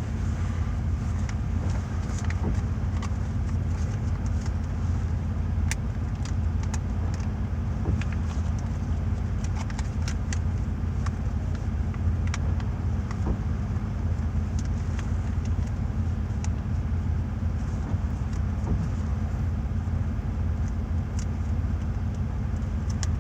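Steady low road and engine rumble heard from inside a moving car, with occasional faint sharp ticks.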